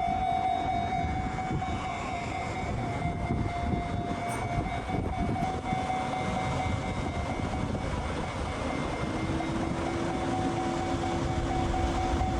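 Railway level-crossing alarm ringing steadily over the rumble of a passing train, with a second, lower alarm tone joining about nine seconds in.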